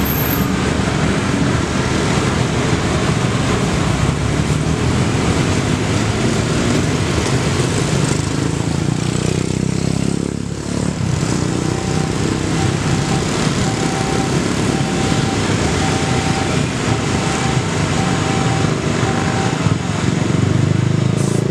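Road traffic, mostly motorcycles with a car, passing over a level crossing, engines running continuously. From about the middle to near the end a faint beep repeats roughly once a second.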